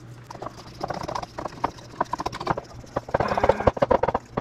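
Spoon stirring a thick mayonnaise-based sauce in a ceramic bowl: quick, repeated clinks and scrapes of the spoon against the bowl, coming fastest about three seconds in.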